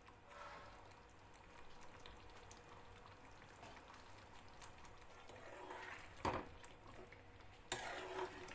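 Thick curry gravy simmering quietly in the pan, with two sharp clicks of a steel ladle against the pan in the last few seconds as it is stirred.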